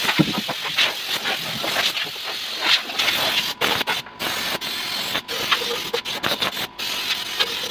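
A hose-fed orbital sander, most likely air-powered, whirring with a hiss as it sands down puttied plywood on a speaker box before painting. It cuts out for a moment a few times.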